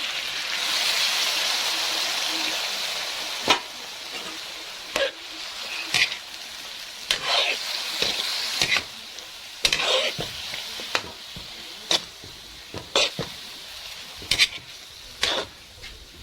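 Chicken adobo sizzling in a wok, the sizzle swelling loud just after sauce has gone in, then a spatula stirring, scraping and knocking against the pan about once a second over a quieter sizzle.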